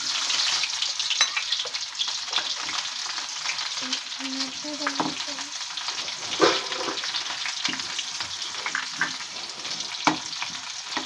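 Chopped shallots sizzling and frying in hot coconut oil with mustard seeds in a kadai, being stirred, with scattered sharp clicks and taps through a steady hiss.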